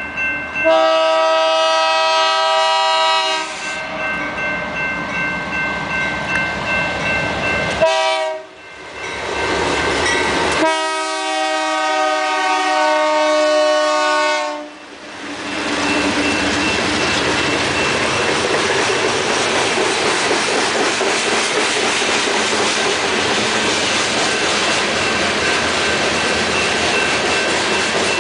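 GE C44-9W locomotive's multi-chime air horn sounding for a grade crossing: a long blast, a short one, then a second long blast. Then the train's covered hopper cars roll past with a steady rumble and a rhythmic clickety-clack of wheels over rail joints.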